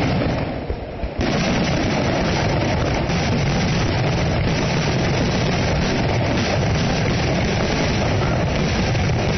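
Fireworks going off in a dense, continuous barrage of bursts and crackling, dipping briefly about a second in.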